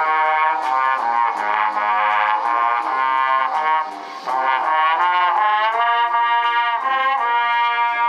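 High school wind band playing, with trombones and trumpets prominent in sustained chords, and a brief break between phrases about four seconds in.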